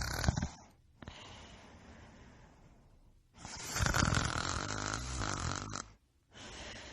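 Snoring in short pieces cut together: a loud snore dies away about half a second in, quiet breathing follows, then a loud snore of about two and a half seconds from about three and a half seconds in, then a quieter snoring breath near the end.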